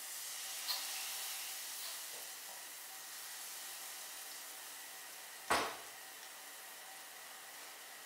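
Zlabia batter sizzling as it fries in hot oil, a steady hiss that eases slightly as it goes. A single sharp knock about five and a half seconds in.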